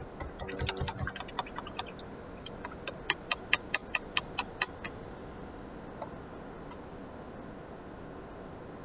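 Small hard objects tapping off camera: a scatter of light clicks and dull knocks, then a fast, even run of about a dozen sharp clicks, roughly five a second, stopping about halfway through, with a single tick or two after.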